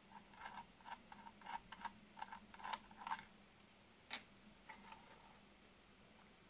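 Faint, irregular light clicks, several a second for about four seconds and then tailing off, as a nut is unscrewed by hand from the screw that clamps the filament drum on a homemade PET-bottle filament winder. A faint steady low hum runs underneath.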